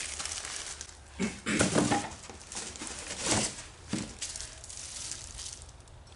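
Unpacking noise: plastic bags crinkling and a part being pulled from polystyrene foam packing, in a few short rustling, scraping bursts.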